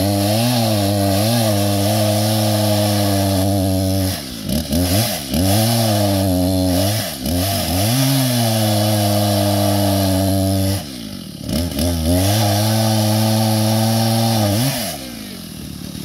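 Two-stroke gas chainsaw running at high revs in the deadfall. Its pitch drops and climbs back twice as the throttle is let off and squeezed again, and it eases off near the end.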